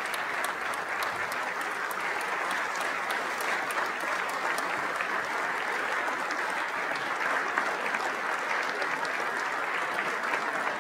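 Large crowd clapping in a standing ovation, the applause steady and unbroken.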